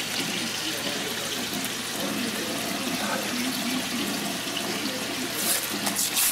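Bacon sizzling in a frying pan, a steady hiss with a few sharper crackles near the end.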